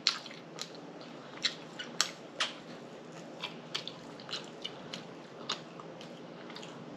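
A person chewing fried pork chop close to the microphone, with irregular wet lip smacks and mouth clicks, about a dozen of them, the sharpest near the start and around two seconds in.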